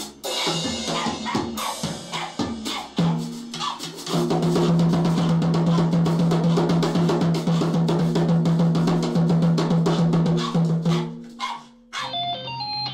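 Drum kit played with rapid strikes on the drums and cymbals, over a steady low note held for several seconds. Near the end it stops and a few toy-keyboard notes begin.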